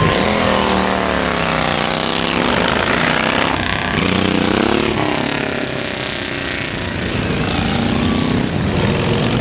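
Heavy touring motorcycles riding past one after another, each engine's note sliding down and up in pitch as the bike goes by.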